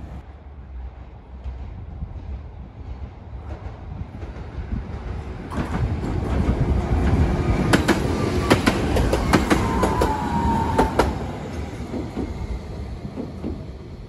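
Tokyu Setagaya Line 300-series two-car tram passing close by: its running rumble builds, with a run of sharp clacks as the wheels cross rail joints and a falling whine near the end of the pass, then fades as it moves away.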